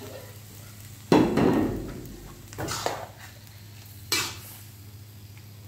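Steel ladle and wok spatula knocking and scraping against a wok while tossing fried rice vermicelli, several sharp strikes: the loudest about a second in, then a pair near three seconds and one more about four seconds in.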